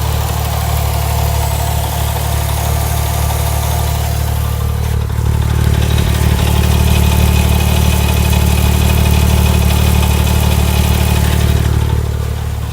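Porsche 997 Turbo Mk1's twin-turbo flat-six idling warm, with a ticking noise that, to the owner, appears at idle once the oil is warm. It gets louder about five seconds in.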